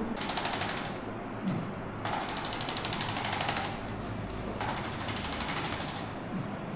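A small motorised device makes three bursts of rapid, even mechanical tapping. The middle burst is the longest, and each stops abruptly.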